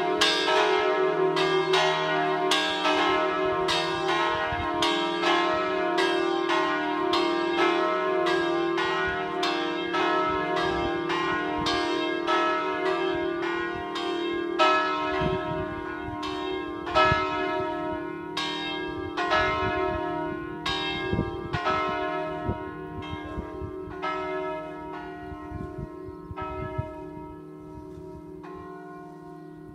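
The three largest bells of a five-bell ring in E-flat are swung electrically and struck by synchronised falling clappers, ringing a rapid overlapping peal over a steady hum. In the second half the strikes slow and thin out and the sound fades as the bells swing down to rest.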